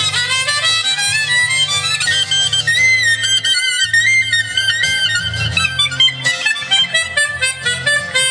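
Harmonica playing a solo melody with bent notes over a low instrumental accompaniment, in an instrumental break of a live song.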